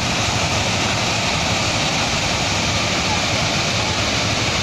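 Steady roar of a landslide, earth and debris pouring down a hillside.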